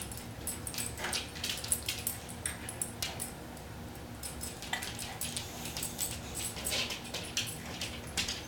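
A dog's claws ticking irregularly on a Pergo laminate floor as it walks.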